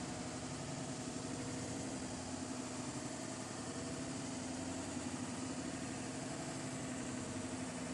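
A steady mechanical hum, like a motor or engine running at an even speed, with a constant low tone and no changes.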